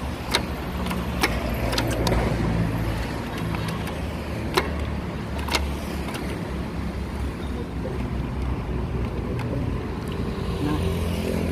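An engine running steadily in a workshop, with a handful of sharp metallic clinks and knocks, most of them in the first half.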